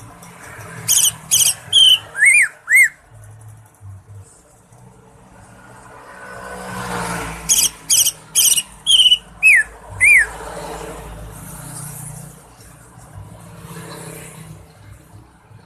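Cucak ijo (green leafbird) song: two loud phrases about six seconds apart, each a quick run of high sharp notes ending in two arched, falling whistles.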